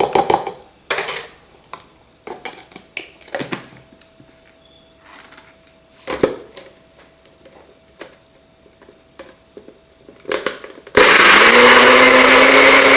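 A few scattered knocks and clicks, then about eleven seconds in an electric countertop blender starts and runs loud and steady, its whine rising briefly as it comes up to speed. It is blending garlic, lemon juice, chillies, olive oil and spices into a marinade.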